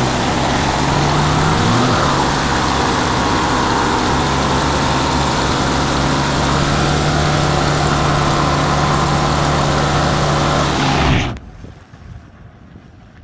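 Pickup truck doing a burnout: the engine is held at high revs with a steady drone while the rear tyres spin and smoke on the asphalt, with a loud hiss over it. The sound cuts off abruptly near the end.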